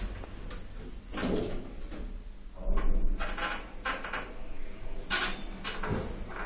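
Kone traction elevator making a series of irregular scraping, door-like clunks over a steady low hum: the strange noise the lift has developed.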